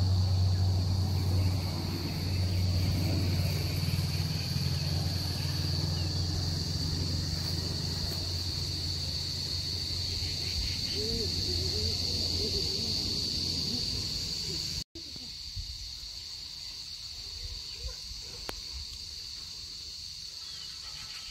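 Steady high-pitched drone of insects such as cicadas or crickets, with a low rumble under it that stops abruptly about two-thirds of the way through, where the sound drops out for an instant at a cut and continues quieter.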